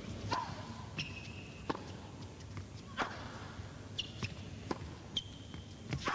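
Tennis rally: a serve, then sharp pops of the ball off racket strings and bouncing on the court, about nine in all at uneven gaps of half a second to a second and a half. A few short, high squeaks follow some of the hits.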